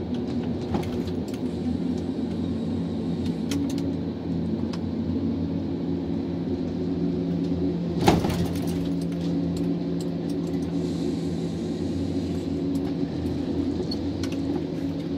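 John Deere 1270G harvester running steadily, its diesel engine and hydraulics heard from inside the cab, while the H480 head fells and feeds a tree. Scattered clicks and cracks, with one loud crack about eight seconds in.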